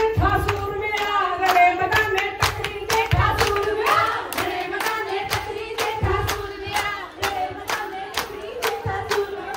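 A group of women singing a Punjabi folk song together to the steady hand clapping of giddha, about three to four claps a second, with a few low thuds.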